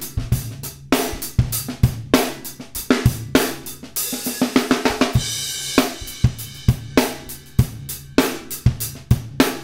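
Acoustic drum kit recording (kick, snare, hi-hat and cymbals) playing through the Drawmer Dynamics compressor plugin, with the compressor's attack and release being changed by hand, auto mode off. A cymbal washes over the beat about four seconds in. The compressed drums have some beef to them.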